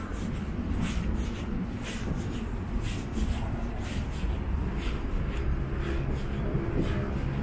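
Steady rumble of city road traffic, with footsteps on the paved sidewalk about two a second.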